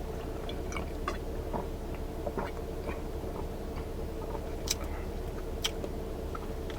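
A person chewing food, with small scattered clicks and crunches, over a steady low hum inside a car.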